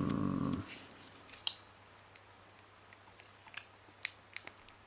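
A short low hum in the first half second, then a few small sharp clicks of plastic as a knife pries the front housing off a Sony Ericsson K750i phone, the last click near the end the loudest.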